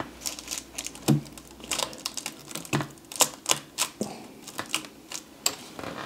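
Irregular sharp clicks and light taps, about nine of them at uneven spacing, as a Velcro-backed patch is handled and lined up under the presser foot of a sewing machine.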